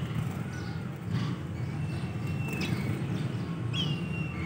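Small birds chirping, with two short high held notes around the middle and near the end, over a steady low rumble.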